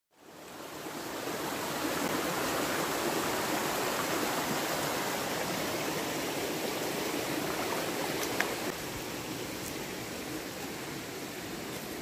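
Steady rush of running water, like a forest stream, fading in at the start, with a single faint click about eight seconds in.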